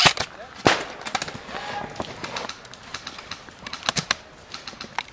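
Airsoft rifles firing single shots: sharp cracks at irregular intervals, the loudest at the very start and about a second in, with another cluster near the end.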